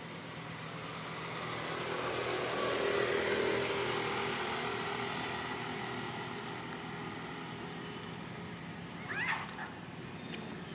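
A motor vehicle passing by, growing louder to a peak about three seconds in, then slowly fading as its pitch drops. Near the end comes a short, high squeaky call.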